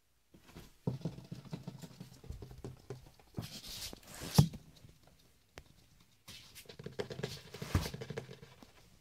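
Ferret scampering about on a wooden floor: two stretches of quick pattering, each ending in a louder knock.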